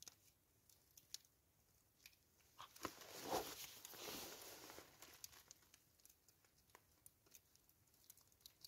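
Faint crackling and rustling of eggshell being cracked and picked off an egg roasted dry beside a wood stove, loudest for a couple of seconds around three to four seconds in, with scattered small clicks.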